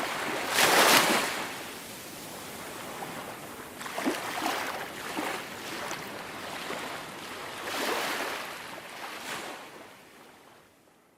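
Small waves breaking and washing up onto a sandy beach, coming in surges every three to four seconds, the first the loudest, then fading out near the end.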